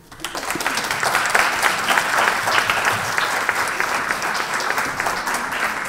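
An audience applauding, the clapping swelling up within the first second and then holding steady.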